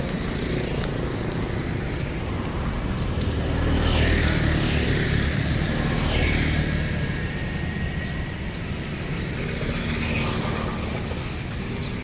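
Street traffic: a steady wash of passing motorbikes and cars. It swells as vehicles go by about four and six seconds in.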